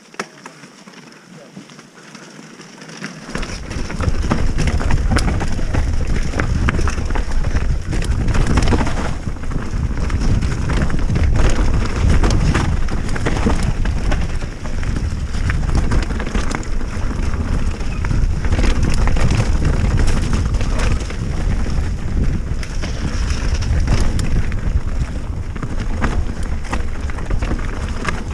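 Mountain bike riding fast down a dirt trail, heard through an action camera's microphone: heavy wind buffeting with tyre noise on dirt and constant clattering from the bike. It starts about three seconds in, after a quieter opening.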